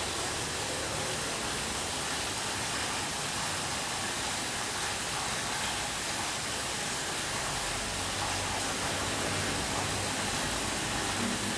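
Light rain heard from indoors: a steady, even hiss of falling rain. Near the end a low rumble of thunder begins to build.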